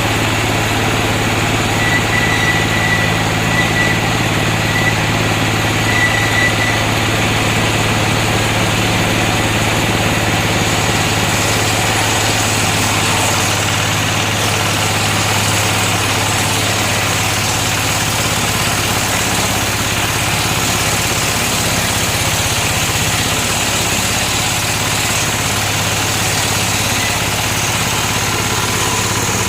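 Engine of a homemade circular-saw rig running steadily, a constant mechanical hum with no pauses.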